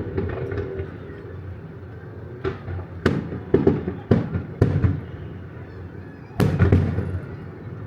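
Aerial fireworks bursting: a run of sharp bangs about half a second apart from about three seconds in, each followed by an echoing rumble, then the loudest burst about six and a half seconds in.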